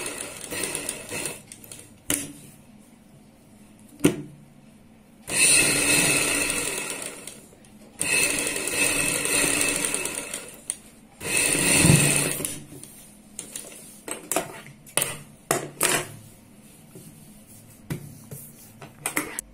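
Sewing machine stitching a buckram facing onto a kurti neckline, running in bursts of two or three seconds with short stops between. After about thirteen seconds it stops, leaving scattered light clicks and rustles of the cloth being handled.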